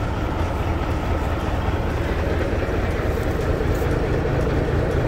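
Heavy diesel semi-truck engine idling, a steady low rumble with an even pulse.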